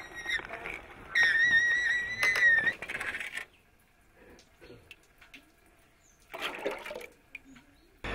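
A high, wavering squeal for about a second and a half near the start, then water sloshing and splashing as a bowl scoops through a metal basin of olive oil and water, with quiet gaps between the splashes.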